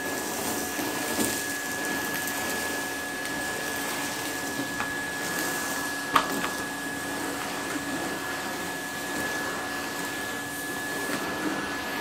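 Drum-type canister vacuum cleaner running steadily with a constant high whine, its floor head drawn over carpet sucking up scattered debris. There is a single sharp click about six seconds in.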